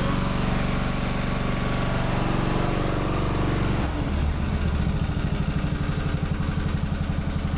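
MTD Lawnflite 548 lawn tractor's Briggs & Stratton engine running steadily at a faster speed, then about four seconds in dropping to a slower idle with a distinct pulsing beat.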